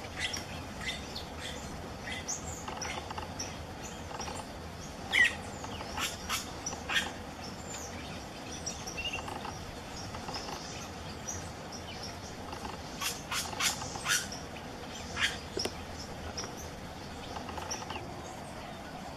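Plain parakeets giving short, shrill, high-pitched calls at irregular intervals, the loudest about five seconds in and a quick run of several calls around thirteen to fourteen seconds in.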